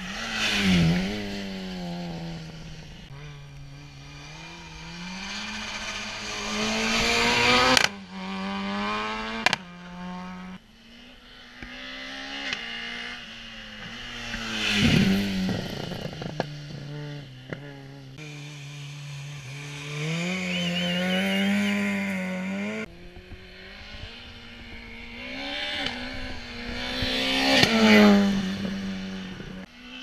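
Small French four-cylinder rally cars revving hard, climbing in pitch through each gear and then dropping on the shift. Three times a car passes close by with a sharp fall in pitch, about a second in, midway through and near the end.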